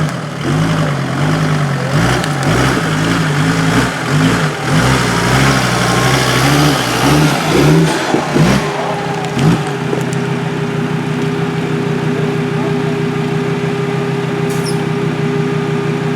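Rally car engine, its pitch rising and falling again and again for about the first half. From about halfway it runs at a steady, unchanging pitch.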